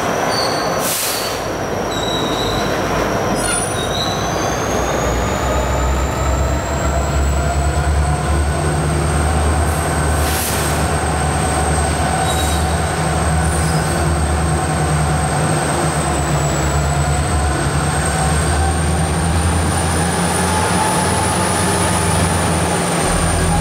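Freight train rolling by with a steady, high wheel squeal that slowly wavers in pitch. A low diesel rumble comes in about five seconds in and holds.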